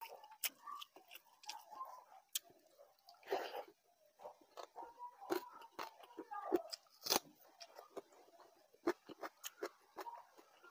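Close-up eating sounds: chewing with crunchy bites, and a hand mixing soaked water rice in a steel bowl, with irregular sharp clicks throughout.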